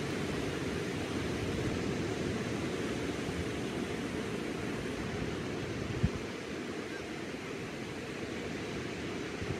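Small waves breaking and washing up a sandy beach: a steady low surf wash. A single short low thump about six seconds in.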